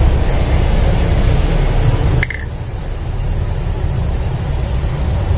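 Steady low background hum with a hiss over it. The hiss drops away suddenly a little after two seconds, with a brief high blip at that point.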